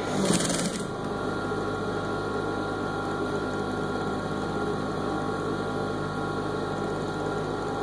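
Industrial sewing machine running steadily, stitching stretch binding onto the sleeve of a knit T-shirt, with a short rustling noise near the start.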